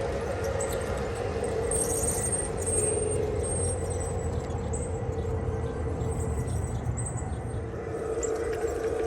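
Train rolling by with a steady low rumble and hum, and brief faint high-pitched wheel squeals.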